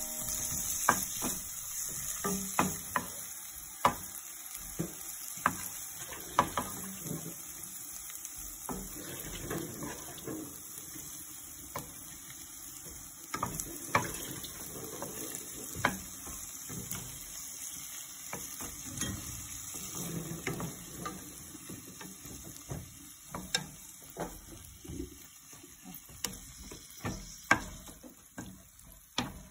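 Shrimp and diced pork frying in oil in a pan, a steady sizzle, with scattered clicks and knocks as the food is turned by hand and stirred with a wooden spatula against the pan.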